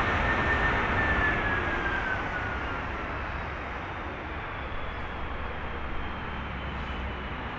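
An Airbus A330-300's General Electric CF6-80E1 jet engines winding down as the airliner slows on its landing rollout. A whine falls in pitch over the first three seconds while the noise eases off, leaving a steadier, lower rumble.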